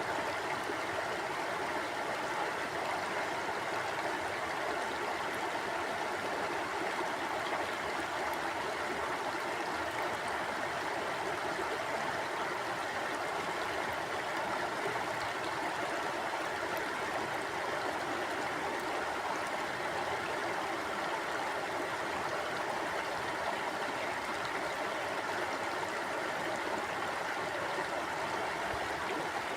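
Mountain stream flowing steadily over rocks, an even rushing and burbling of water that holds constant throughout.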